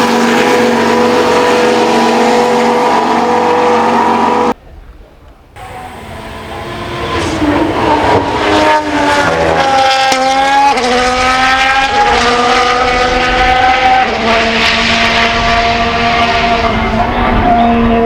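Haas VF-23 Formula 1 car's turbocharged V6 running at high revs with a steady note, which cuts off suddenly about four and a half seconds in. The car's engine then comes in again, growing louder, its pitch climbing and dropping back at each upshift as it accelerates through the gears.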